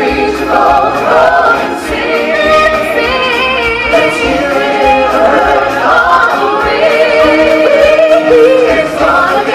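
Stage-show song: a chorus of singers with music, loud and continuous, the voices holding and bending long notes.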